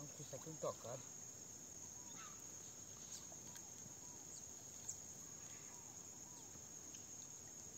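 Faint, steady high-pitched insect chorus, a continuous shrill drone, with a few faint short chirps over it.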